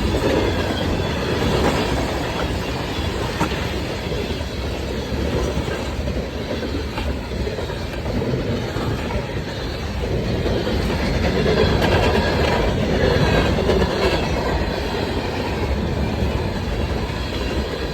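Train rolling past with a steady rumble of wheels on rails and clickety-clack, with faint high wheel squeal; it grows louder about ten seconds in.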